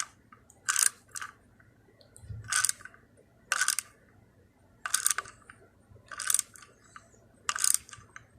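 Ratchet wrench clicking in about seven short bursts, roughly one every second or so, as a 1/4-20 grade 8 bolt is tightened into an engine mount hole retapped from M6.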